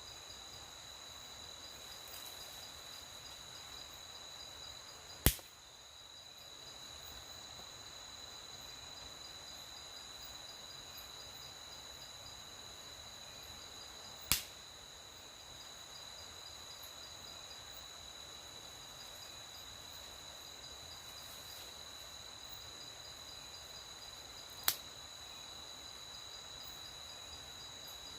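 Night insects, crickets, chirring steadily at a high pitch. Three sharp, loud snaps stand out, about nine to ten seconds apart.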